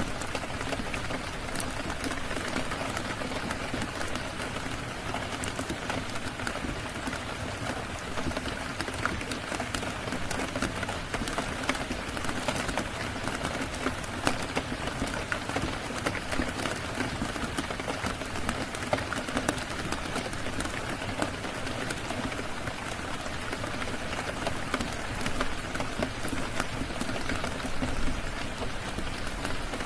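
Steady rain falling on a surface, an even hiss dotted with many small sharp clicks and ticks.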